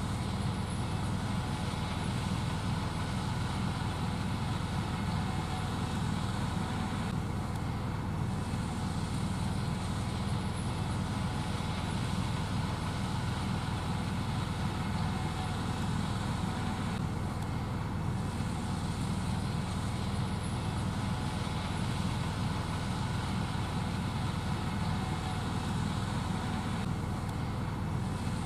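Gleaner S78 combine harvester running steadily under load while shelling corn: a continuous heavy engine and threshing drone, deepest in the low range.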